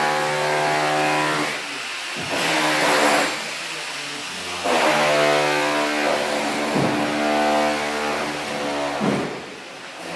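A motor running at a steady pitch, with short breaks where it drops off and patches of hiss about two and nine seconds in.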